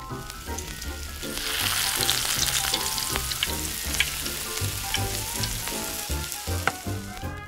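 An egg dropped into hot oil in a miniature steel pan, sizzling with scattered crackles from about a second in. Background music with a steady beat plays underneath.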